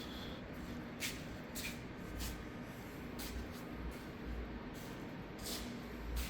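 Steady shop background noise with a faint hum, broken by short scuffs and hissy strokes and some low thuds, like footsteps and handling of a handheld recording device while walking across the bay.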